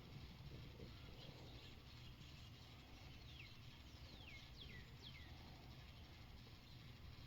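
Faint outdoor quiet with a low steady hum, and a small bird calling in the middle: four quick whistles, each sliding down in pitch.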